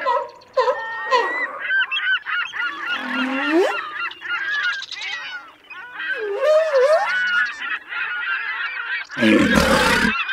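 A flock of birds honking, many short calls overlapping. About nine seconds in, a sudden loud burst of noise cuts in over them.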